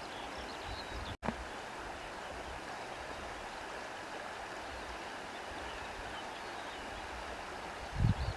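Stream of water rushing steadily over rocks. The sound drops out for an instant about a second in, and a low thump comes near the end.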